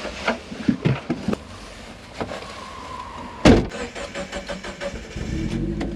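Clicks and knocks around a car, then one loud thump about three and a half seconds in, the kind a car door makes when it shuts. Near the end a car engine starts running steadily at a low idle.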